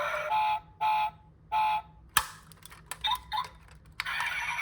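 Three short electronic beeps about half a second apart, followed by a single sharp click and a few faint small sounds.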